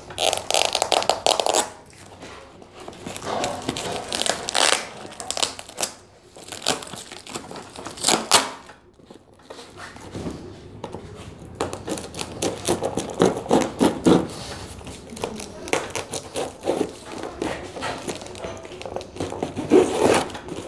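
Plastic and packing tape being peeled and torn off a cardboard shipping box, with crinkling and rustling as the parcel is handled. The sounds come in irregular short rips and scrapes.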